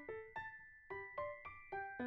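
Background music: a light keyboard melody of struck, decaying notes, about three or four a second.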